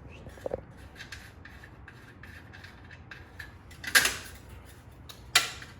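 Wrench working on a bicycle's nuts: a run of faint small clicks and scraping, with two sharp knocks about a second and a half apart near the end.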